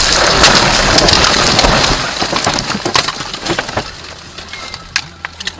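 A car crashing off the road into roadside trees and brush: a loud impact, then about two seconds of crunching and breaking glass as it ploughs through branches, fading into scattered cracks and ticks of falling debris.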